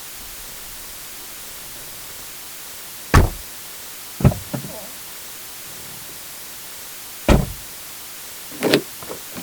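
Passenger car doors being worked: four short, solid thuds of a door shutting or latching, about 3, 4, 7 and 9 seconds in, some followed by lighter latch clicks and rattles.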